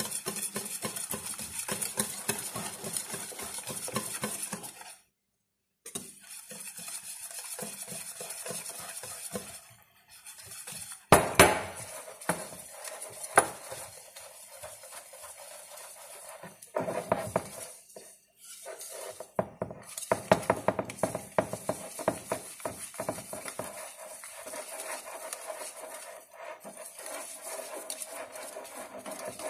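Cake batter being mixed in a bowl: a busy run of scraping and light clinking against the bowl, with a few sharper knocks, the loudest about eleven seconds in.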